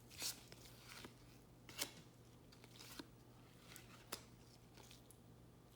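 Faint rustles and soft ticks of trading cards being handled and slid over one another by hand: a few scattered touches, the clearest nearly two seconds in, over a low steady hum.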